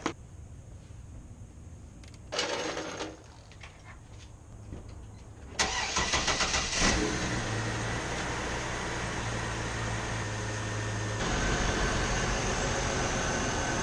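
Chevrolet TrailBlazer 4.2-litre inline-six cranked by its starter about five and a half seconds in, catching after about a second and then idling steadily. The idle grows a little louder about eleven seconds in. Before the start there is a single click and a short rattle.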